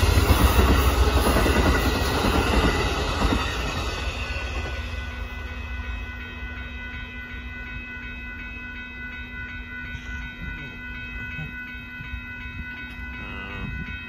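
Amtrak Texas Eagle's bilevel passenger cars rolling past a grade crossing, loud for the first few seconds and then fading away as the end of the train passes. Under it the crossing's warning bell keeps ringing steadily.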